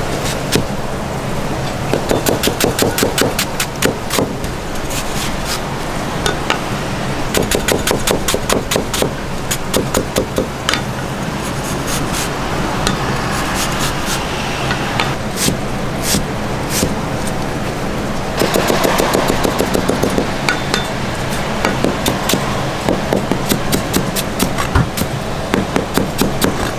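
Kitchen knife chopping onion on a thick chopping block: fast runs of sharp knife strikes against the board in several bursts, with short pauses between, over a steady low hum.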